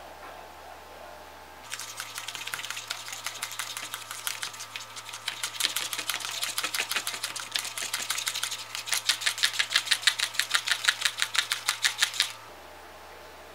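A small plastic spoon stirring a powder-and-water paste in a plastic candy-kit tray: a quick run of scrapes and clicks against the tray's walls. It starts about two seconds in, grows louder and more regular, at about three to four strokes a second, and stops shortly before the end.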